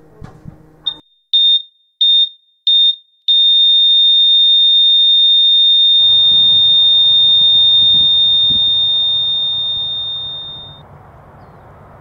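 Hospital heart monitor beeping five times, about one and a half beeps a second, then going into one steady high flatline tone that slowly fades out: the signal of the heart stopping. A steady outdoor background hiss comes in about halfway through.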